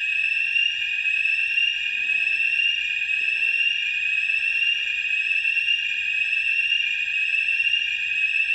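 Building fire alarm sounding without a break: a shrill electronic tone with a slight rise in pitch that repeats about once a second. Smoke from burnt toast set it off.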